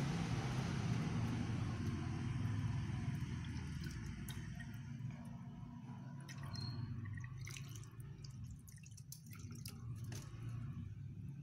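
Water dripping and trickling at a pipe joint, scattered drips heard more often in the second half, over a steady low hum.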